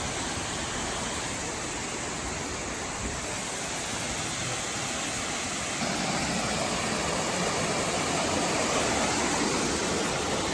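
Shepherd's Dell waterfall: a steady rush of falling water that gets louder about six seconds in.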